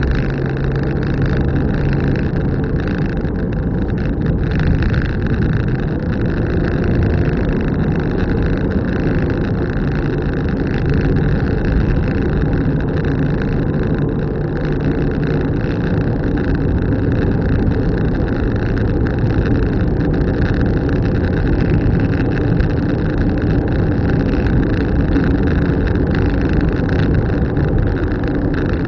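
Car driving along: steady engine hum mixed with constant road and tyre noise.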